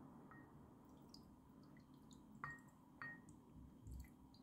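Near silence with a few faint, separate drips as water is poured slowly from a small glass into a bowl of soy sauce, plus a soft low thump near the end.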